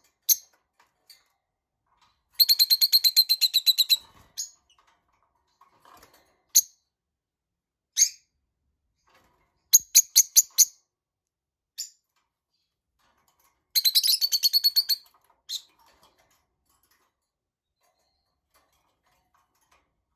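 Lovebirds chirping: sharp, high single chirps and short runs, with two rapid chattering trains of about ten chirps a second, each lasting a second or more.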